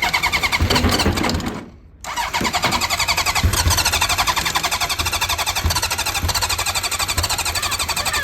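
Electric starter cranking the Honda CB900F's 985cc big-bore inline-four in two goes, a short burst and then a longer run of steady, even pulses, without the engine catching. This is a cold start with choke-less flat-slide carburettors after months of storage.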